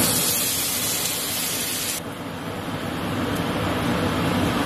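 Blended tomato sauce sizzling as it is poured into hot oil in a pan. A loud, bright hiss that thins out about two seconds in, leaving a softer, steady frying noise.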